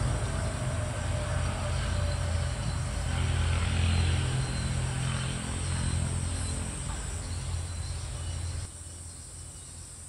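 Steady high-pitched insect chorus over a low rumble; the rumble drops away abruptly near the end, leaving the insects.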